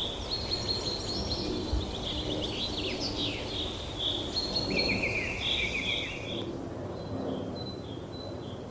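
Several small birds chirping and trilling in quick, overlapping calls over a steady background hiss; about two-thirds of the way through, the birdsong drops to faint, scattered chirps.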